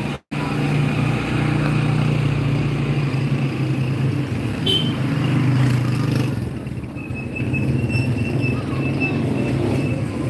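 Street traffic: a motor vehicle's engine running close by with a steady low drone that eases after about six seconds. A faint thin high tone comes in during the last few seconds.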